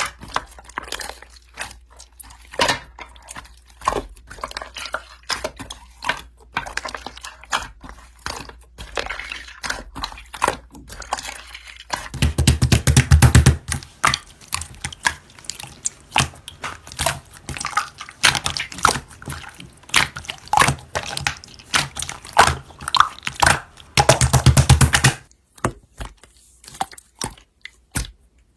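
Slime being squished, stretched and poked by hand, giving a stream of small wet clicks and crackles. About twelve seconds in, and again near the end, the clicking turns denser and louder for a second or so.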